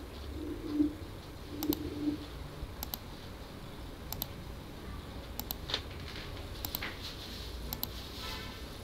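A bird cooing low a few times in the first two seconds, the loudest sound here. Computer mouse double-clicks come roughly once a second throughout, as columns are placed one at a time at grid points.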